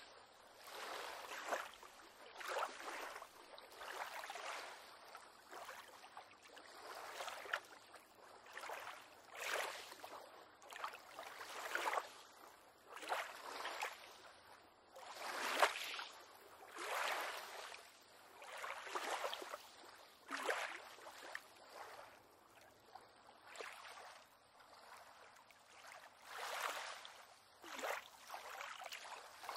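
Small waves lapping against a pier on calm water, a soft splash every second or two.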